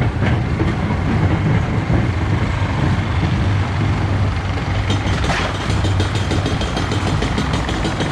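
Big Apple-style family coaster train running along its steel track: a steady low rumble from the wheels, with rapid clattering clicks joining in from about five seconds in.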